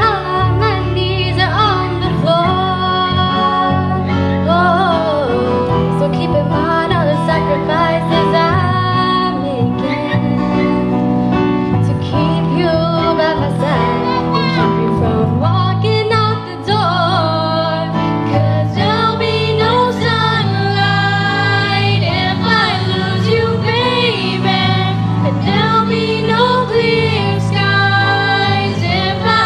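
A small group of teenage girls singing a pop ballad into microphones, accompanied by keyboard chords and acoustic guitar.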